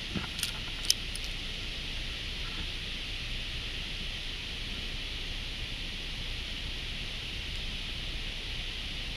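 Steady high hiss of outdoor background noise, with a few light clicks in the first second.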